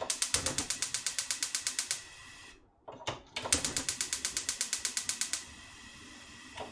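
Gas stove's electric igniter clicking rapidly, several clicks a second, in two runs of about two seconds with a short pause between, as the burner knob is turned and held. After each run a steady soft hiss of the gas burner follows.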